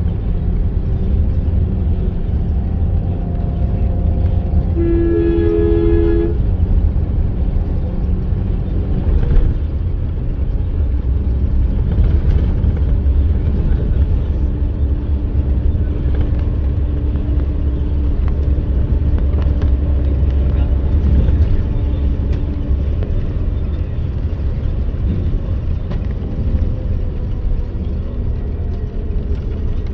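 Bus engine and road noise, a steady low rumble, with a vehicle horn sounding once for about a second and a half, about five seconds in.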